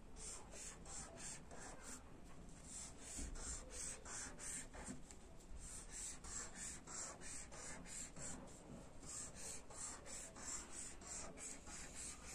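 Felt-tip marker scratching across paper while drawing a zigzag line, a faint, even rhythm of short strokes, about three to four a second.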